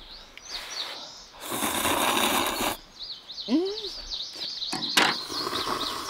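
A long slurp of ramen noodles, lasting about a second and a half, with small birds chirping throughout. Later there is a brief rising hum and a single sharp click.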